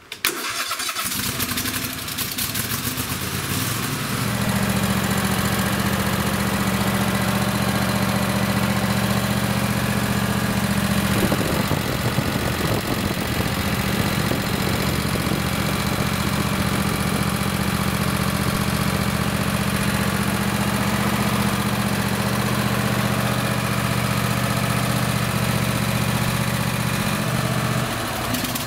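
Kohler Courage 26 hp V-twin lawn tractor engine starting up and running steadily on both cylinders now that the new ignition coils are in. It picks up to a fuller, even run about four seconds in and is switched off with the key at the very end.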